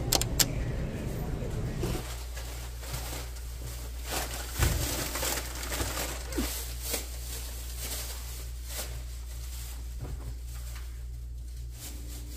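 Plastic grocery bags rustling and items being set down on a kitchen countertop as groceries are unpacked, over a steady low hum, with one louder knock about four and a half seconds in. The first two seconds are busy store noise with sharp clicks.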